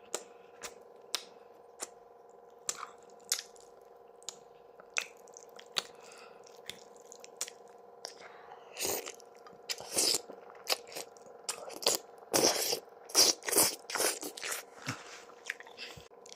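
Close-miked eating of sarmale (stuffed cabbage rolls): a person biting and chewing with wet mouth clicks, sparse for the first half and then louder and denser smacking and squishing, over a faint steady hum.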